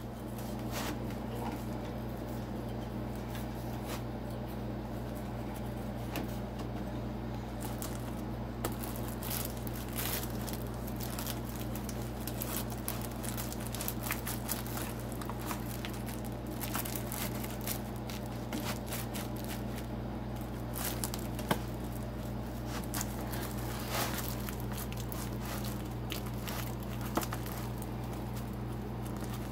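Kitchen knife sawing and scraping through a hard-frozen pizza in its plastic wrap: irregular icy crunching scrapes and crinkling of the plastic, over a steady low hum.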